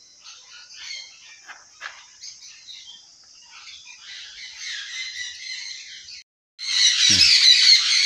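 Small conures (green-cheeked and pineapple conures) chirping and calling faintly. About six seconds in the sound drops out for a moment, and a loud, dense squawking of sun conures takes over.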